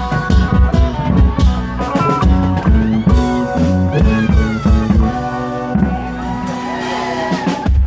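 Amplified Isan klong yao procession band playing upbeat music: a steady drum beat under a plucked-string lead melody. The drums drop out about five seconds in, leaving held melody notes.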